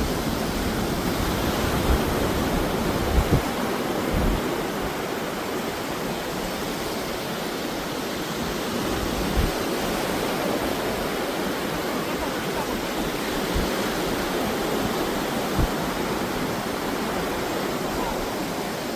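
Steady rushing noise of surf and wind on the microphone, with a few brief low thumps.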